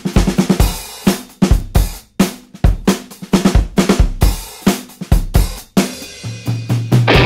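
Background music: a drum-kit beat of kick drum, snare and cymbals. A held low bass note comes in near the end.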